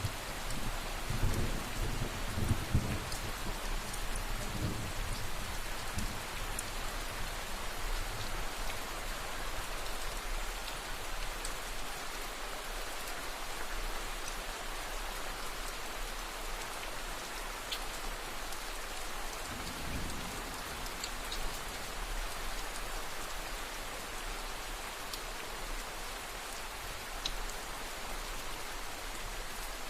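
Steady rain falling, an even hiss throughout. Low rumbles of distant thunder come in the first few seconds and again about two-thirds of the way through.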